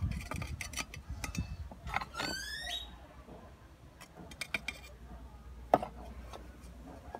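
Hands working potting soil and handling a terracotta pot: soft scrapes, rustles and small taps, with one sharp knock near the end. A short rising squeak sounds about two seconds in.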